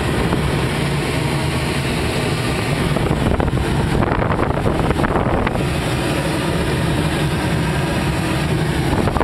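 Steady rush of airflow and wind noise inside the cockpit of a Grob 103 two-seat glider in flight on tow, with a low even drone underneath.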